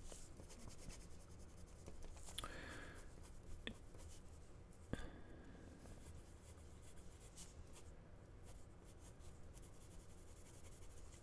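Faint scratching of a fountain pen's gold-plated steel number 5 nib on lined paper as it writes, with a few light ticks along the way.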